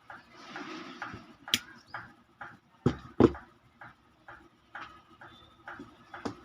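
Clicks, taps and knocks of small blender parts and tools being handled on a workbench, with a short scraping hiss near the start and two loud knocks about three seconds in.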